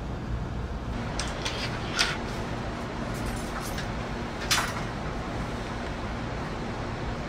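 Steady low hum inside a standing Amtrak Acela passenger car, with a few light clicks and knocks; the sharpest come about two seconds in and again at about four and a half seconds.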